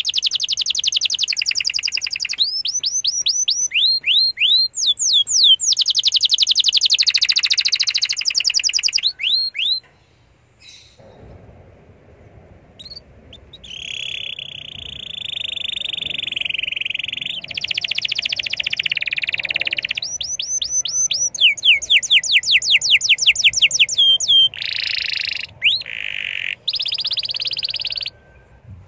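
Domestic canary singing a long, fast song: rapid runs of repeated chirping notes, a brief pause about ten seconds in, then a sustained buzzy trill and more quick runs of repeated notes.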